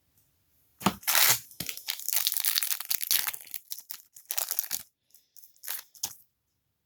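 A trading-card pack's foil wrapper being torn open and crinkled: a sharp tear about a second in, a couple of seconds of dense crinkling, then a few shorter crinkles near the end.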